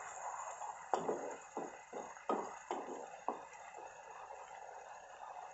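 Wooden spatula stirring thick masala gravy in a frying pan, giving about five soft knocks and scrapes against the pan between one and three and a half seconds in, over a faint steady hiss.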